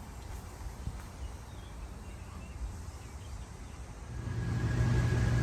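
Low outdoor rumble with a few faint chirps. About four seconds in, a steady mechanical hum fades up over about a second and holds, with a low drone and a thin higher tone.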